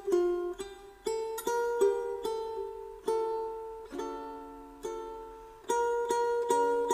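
Slow background music on a plucked string instrument: single notes and chords struck every half-second to a second, each ringing out and fading before the next.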